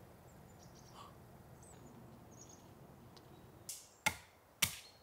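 Faint outdoor background with a few faint high chirps. About four seconds in, a series of sharp knocks or clicks begins, about half a second apart.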